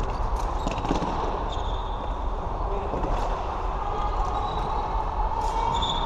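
Floorball play: scattered sharp clacks of sticks and the plastic ball over a steady din, with a couple of short high squeaks.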